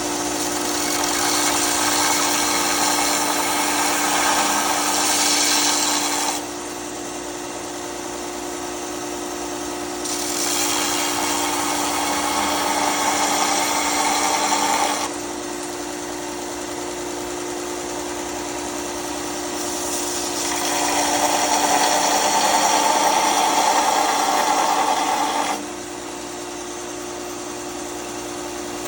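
Bauer 4x36 belt and 6-inch disc sander running with a steady motor hum while a bevel is ground on a blade. Three grinding passes of about five seconds each make a louder, hissing rasp that stops sharply, and the sander runs unloaded between them.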